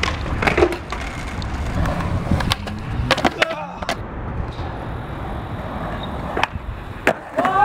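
Skateboard wheels rolling on concrete with a low rumble, broken by several sharp clacks of the board against the concrete.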